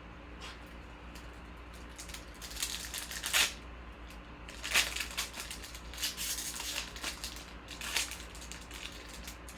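Crinkling of trading-card pack wrappers and cards being handled, in several short bursts.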